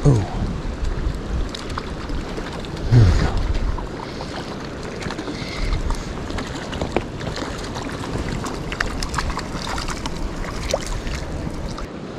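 Lake water sloshing and lapping with wind on the microphone and scattered small clicks. Two short low sounds fall in pitch, one at the start and a louder one about three seconds in.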